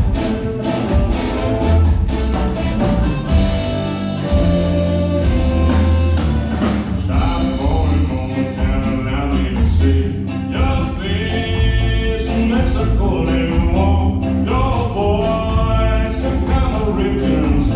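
Live band playing a ska/reggae number: electric guitars, bass, drum kit and keyboard, with a harmonica lead played into the microphone over the top.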